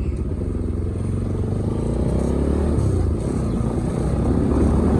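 Motorcycle engine running while riding, its pitch climbing steadily for the first three seconds, then dropping briefly about three seconds in before picking up again.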